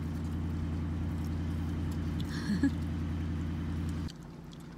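Car engine idling: a steady low hum with a fast, even pulse that cuts off abruptly about four seconds in.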